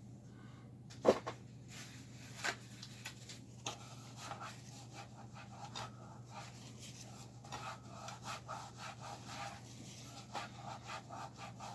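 Hands working on amplifier parts: a sharp click about a second in, another near two and a half seconds, then a run of quick rubbing and scratching strokes, over a low steady hum.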